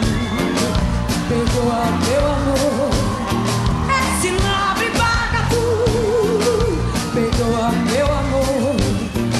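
Live band music with a steady drum beat and a woman singing over it.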